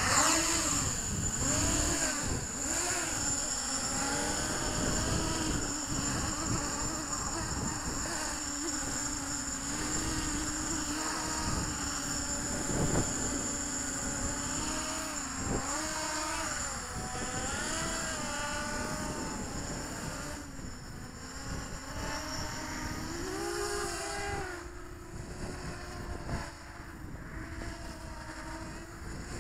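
Realacc GX210 FPV racing quadcopter's four brushless motors and propellers buzzing in flight, starting as it spins up at the beginning, with a steady high whine. The pitch keeps rising and falling as the throttle changes, and the sound grows quieter near the end as the quad flies farther off.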